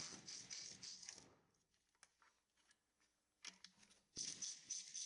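Ratchet clicking in quick runs as the 8 mm hex fasteners on the engine's crankshaft seal cover are loosened, once at the start and again near the end.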